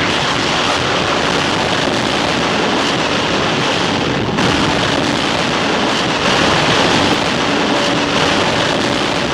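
Strong wind buffeting the microphone of a VHS camcorder: a loud, steady rushing noise with no clear rhythm or impacts.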